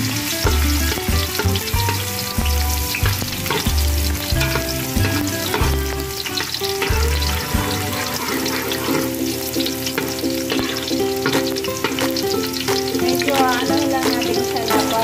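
Minced garlic sizzling in hot cooking oil in a metal pan, with a spatula stirring and scraping against the pan in frequent short clicks.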